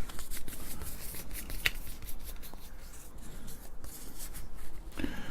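Old ribbon cables and their plastic connectors being rummaged through and handled, with irregular light clicks and rustling.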